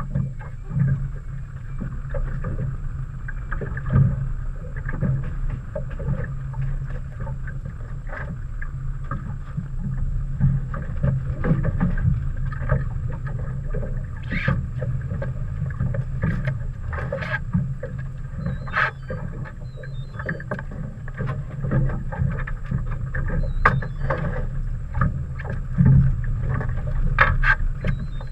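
Boat engine running steadily with a low hum, with scattered sharp clicks and knocks throughout.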